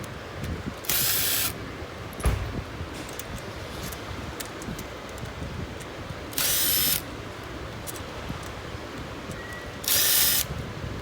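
Cordless impact driver run in three short bursts of about half a second each, spinning out manifold bolts, with a single knock of metal on metal between the first two bursts.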